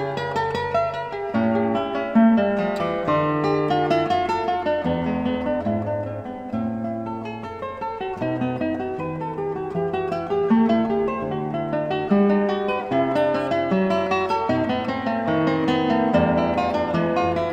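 Background music played on acoustic guitar: a run of plucked and strummed notes over a lower bass line, at a steady level.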